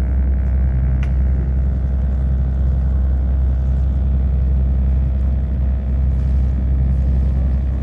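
Sightseeing boat's engine running steadily under way, a constant low drone heard aboard, with a single faint click about a second in.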